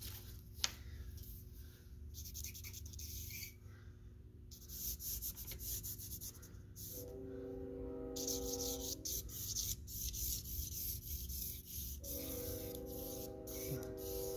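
Vine charcoal scraping and rubbing across drawing paper in repeated strokes, a dry scratchy sound that stops and starts between strokes. Twice a faint steady drone comes in for about two seconds.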